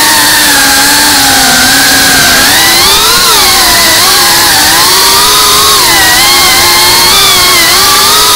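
Geprc Cinelog 35 FPV quadcopter's brushless motors and propellers whining, the pitch sliding down and up with the throttle as it manoeuvres.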